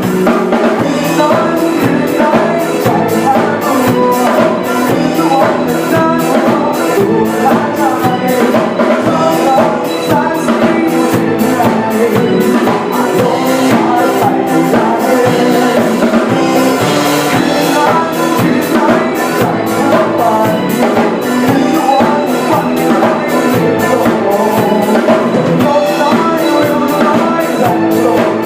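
Instrumental band passage with no singing: a drum kit keeps a steady beat under pitched instruments playing the melody and chords.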